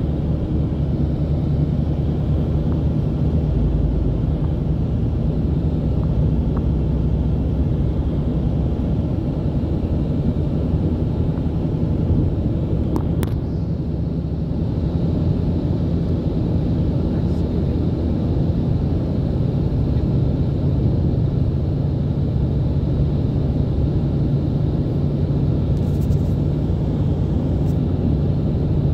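Steady road and engine noise heard inside a car's cabin while cruising on a highway, a continuous low rumble. A brief click about halfway through.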